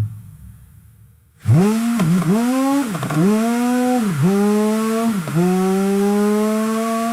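Car engine revving: it starts up about a second and a half in, its pitch dropping and climbing again four times, then holds a steady higher pitch and falls away at the very end.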